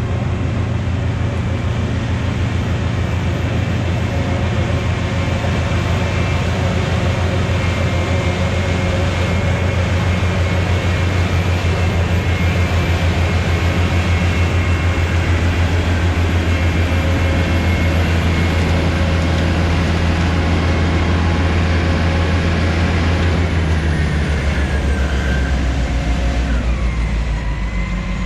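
Oxbo 8430 self-propelled ear corn picker running steadily while harvesting: a loud, continuous engine note with the machinery noise of picking. About 24 seconds in, the engine note drops lower.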